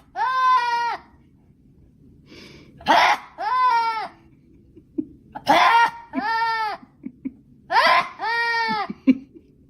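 A voice making the same call four times, about every two and a half seconds: a short breathy gasp, then a drawn-out note that rises and falls in pitch.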